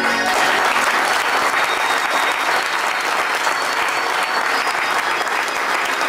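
Audience applauding steadily, the clapping starting just as music stops.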